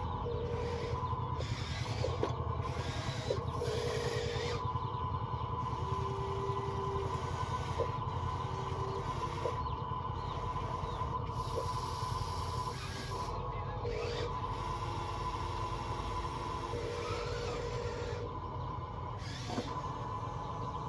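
Small electric motors and gearboxes of radio-controlled construction models running, with a steady high whine and shorter motor tones starting and stopping as different functions are driven. Repeated bursts of grinding hiss come and go over a low rumble.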